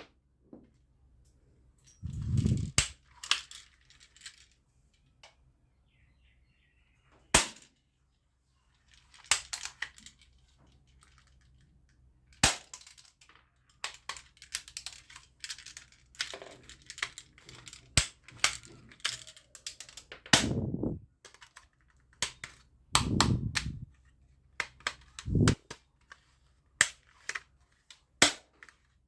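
Toy guns being fired: sharp cap-gun-like cracks at irregular intervals, single and in quick clusters, with a few duller thuds among them.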